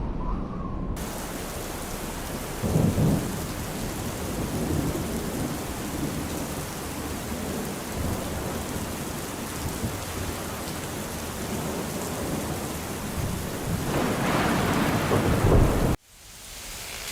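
Steady rain falling, with rumbles of thunder: a short one about three seconds in and a longer one building near the end before the sound cuts off.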